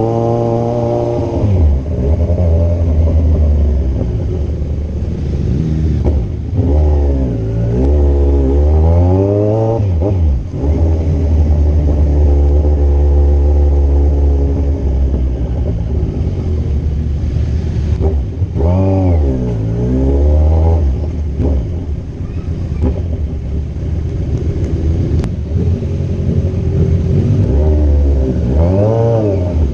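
Kawasaki Z1000's inline-four engine under way, its pitch falling and climbing several times as the bike accelerates and shifts through the gears. A steady rush of wind noise runs underneath.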